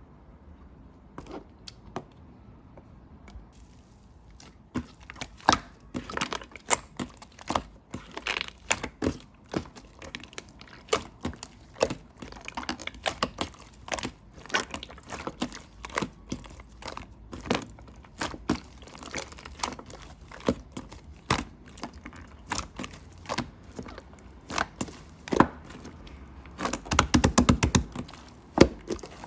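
Slime being squished and pressed by hand, giving a string of sticky clicks and pops, with a quick rapid run of pops near the end.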